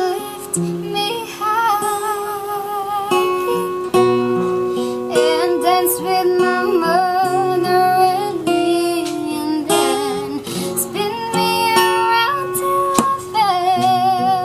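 A child singing with vibrato over acoustic guitar accompaniment.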